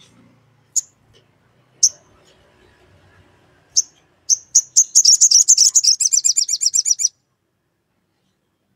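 Olive-backed sunbird calling: single sharp high chirps a second or two apart, then a quickening run that breaks into a fast rattling chatter of chirps for about two seconds before stopping abruptly.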